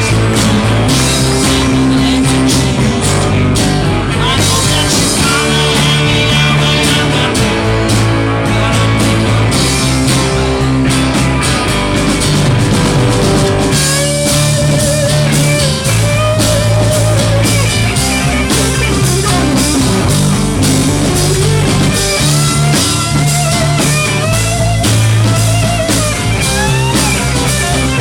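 Live rock band playing an instrumental passage with electric guitar, bass and drum kit; a lead guitar plays bending melodic lines over a steady beat in the second half.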